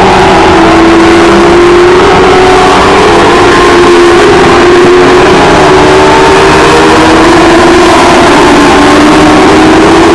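A pack of race cars lapping a short oval at speed, several engines running hard at once. Their overlapping notes make one loud, continuous sound whose pitch drifts up and down as the cars come round the turn.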